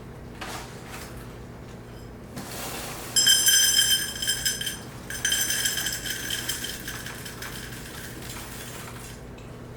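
Dry Cheerios being measured and poured into a cup, with light rustling and clinking. Over this come two steady, high-pitched squeaks of about a second and a half each, a short break apart.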